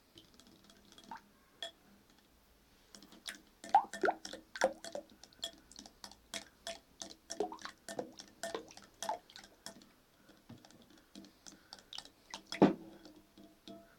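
A spoon stirring runny guar-gum slime in a bowl: irregular wet clicks and taps of the spoon against the bowl, a few a second, starting about three seconds in, with one louder knock near the end.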